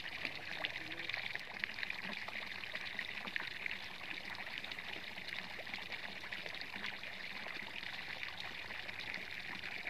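Water pouring from the open end of a white PVC pipe and splashing steadily into the canal water below.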